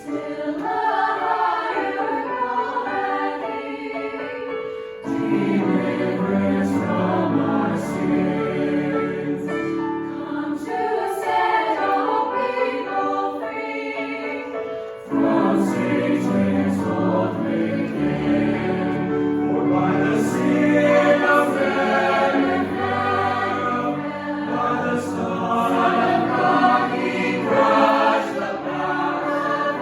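A choir singing a Christmas hymn in several parts, in long held phrases. The sound grows fuller and lower about five seconds in and again about fifteen seconds in.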